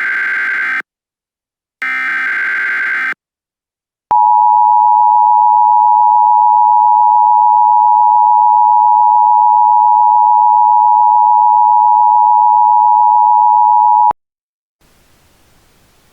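Emergency Alert System alert sounds. First come the harsh buzzing SAME header data bursts: the end of one and then one more, with a second of silence between. About 4 s in, the EAS two-tone attention signal starts and holds steady and loud for about ten seconds, then cuts off suddenly.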